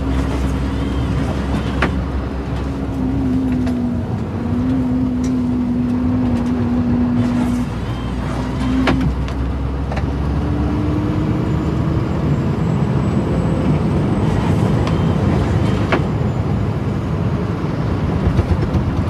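Scania plow truck's engine running steadily, heard from inside the cab while plowing snow: a low rumble with a steady hum over an even rush of road and plow noise. A few sharp clicks break through at irregular moments.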